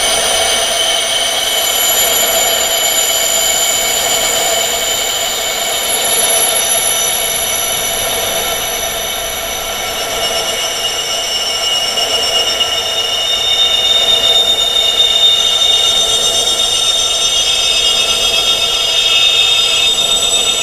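Metal wind chimes, tuned to the frequency of tinnitus, ringing continuously: many high tones overlapping and sustained, with no pauses.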